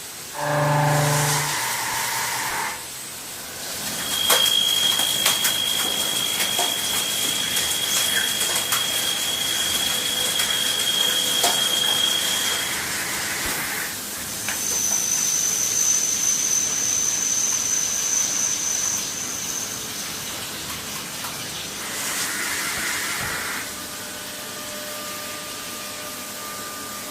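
CNC machine running with a hiss and a steady high whine that steps up to a higher pitch about halfway through.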